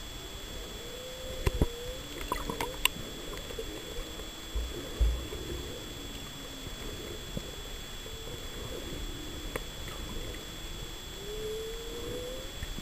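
Humpback whale song heard underwater: scattered moans and rising whoops over a steady hiss, with a long upsweep near the end. A few sharp knocks and dull thumps in the first five seconds are the loudest sounds.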